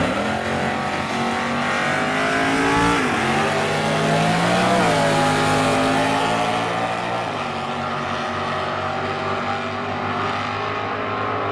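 Two drag cars, a red Camaro and a tan mid-1960s Chevelle, launching off the line together at full throttle. The engines rev up, and the pitch drops at gear changes about three and five seconds in; the sound then steadies and grows duller as the cars run away down the strip.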